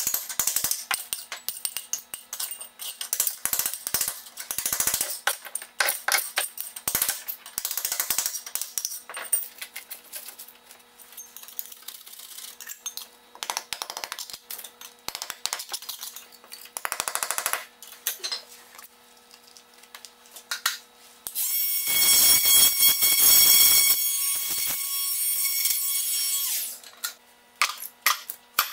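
Metal scraper chipping and scraping broken ceramic floor tile off a cement floor, in irregular sharp scrapes and clinks with tile fragments clattering. Near the end comes a louder, continuous scrape lasting several seconds.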